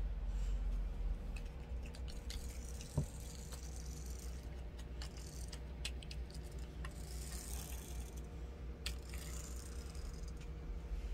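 Small plastic toy car pushed back and forth across a road play mat by hand: rattling clicks and stretches of scraping or whirring from its wheels, with one sharp knock about three seconds in.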